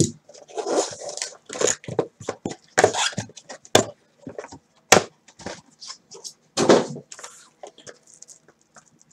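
Cardboard mini boxes being lifted out of a Topps Museum Collection hobby box and set down in a stack: a run of short scrapes, rustles and light knocks with pauses between them.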